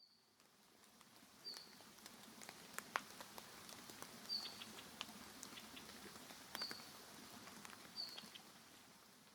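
A small bird giving short, high chirps, five of them spread over several seconds, over scattered faint ticks and patters.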